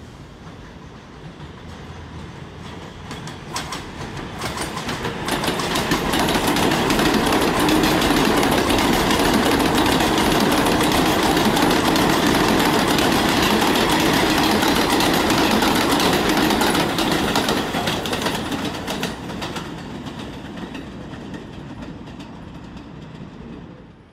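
A 7-line subway train of Kawasaki R188 cars running along the station platform. Its rumble and wheel clatter build over the first several seconds, stay loud for about ten seconds, then fade away.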